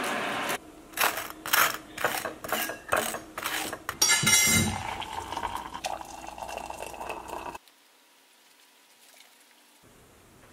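A spoon clinking against a ceramic mug, about three quick clinks a second, then hot water poured from a kettle into a mug. The sound cuts off suddenly about three quarters of the way in.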